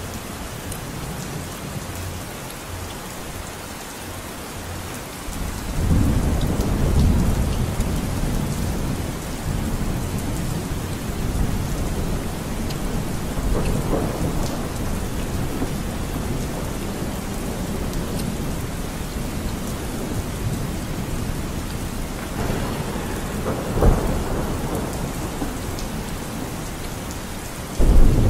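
Steady rain with rolling thunder, the rumble swelling about five seconds in and again several times, with a sudden louder rumble near the end.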